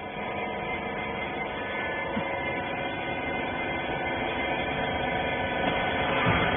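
Steady electric motor and hydraulic pump hum, growing slightly louder over the seconds, with a short falling sweep near the end.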